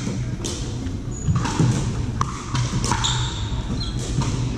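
Pickleball paddles hitting the plastic ball in a rally: several sharp pops spread through a few seconds, echoing in a large gym, with short high sneaker squeaks on the hardwood floor.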